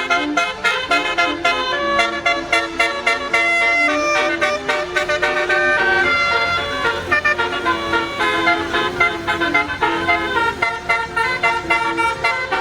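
A bus's basuri telolet horn, an electric multi-trumpet musical horn, playing a continuous tune of held notes that change in quick steps.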